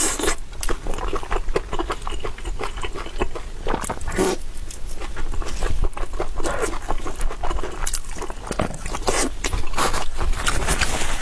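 Close-miked eating sounds: chewing with a dense, irregular run of wet mouth clicks and smacks.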